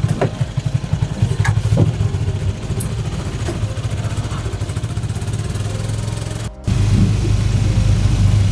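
Motorcycle engine running with a low pulsing rumble, with a few knocks and rattles from the ride. The sound drops out for a moment about two seconds before the end, then carries on as a steadier rumble.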